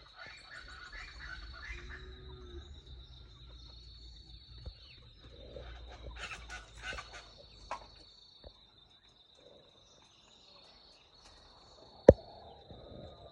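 Dawn countryside ambience: a steady high-pitched insect trill, likely crickets, runs throughout, with bursts of bird chirping about a second in and again around six to seven seconds in. A single sharp click about twelve seconds in is the loudest sound.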